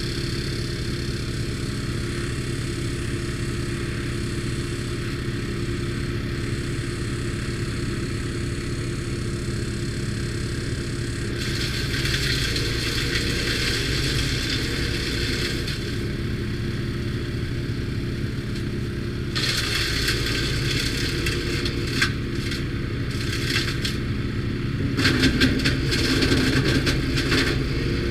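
Timberwolf TW13/75G wood chipper running steadily, with branches being chipped: a spell of chipping about a third of the way in, then louder crackling and clattering of wood being shredded through most of the second half.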